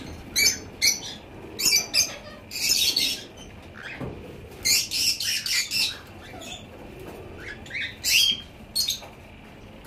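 Caged pet birds in an aviary giving short, shrill chirps and squawks in quick clusters.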